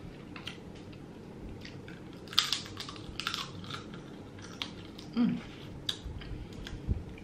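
Cooked Dungeness crab being picked apart by hand and eaten: sharp crackling clicks of shell cracking and snapping, thickest about two to three seconds in, with mouth sounds of eating. A steady electric fan hum runs underneath.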